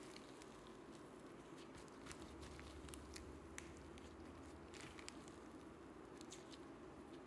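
Faint scattered clicks and small crackling pops of thick slime being stretched and folded by hand, over a low steady hum.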